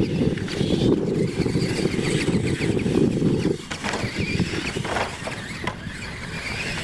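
Radio-controlled electric monster trucks racing on a dirt track: their motors whine up and down in pitch as they speed up and slow down, with tyres scrabbling on the dirt. A low rumble underneath drops away about halfway through.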